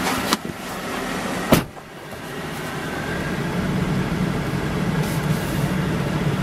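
2012 Chevy Silverado 3500HD pickup's engine idling steadily, heard from inside the cab. A sharp knock sounds about a second and a half in.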